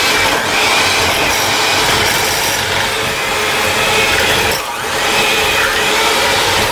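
Electric hand mixer running with its beaters churning cooked crock-pot chicken in a bowl, shredding the meat: a steady motor with mechanical rattle, easing off briefly about two-thirds of the way in.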